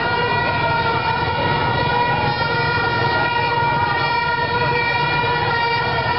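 A horn holding one steady, unbroken tone over the noise of a busy street crowd and passing motorcycles.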